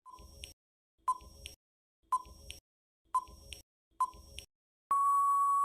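Countdown timer sound effect: five short beeping ticks about a second apart, then one longer steady beep near the end that marks time running out.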